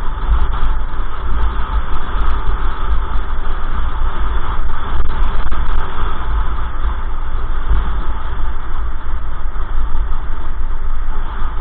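Steady, loud rumble of wind and road noise picked up by a bicycle-mounted camera rolling through a road tunnel, with a few faint ticks.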